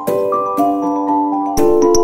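Background music: a light tune of held, bell-like notes, with percussive beats coming in about one and a half seconds in.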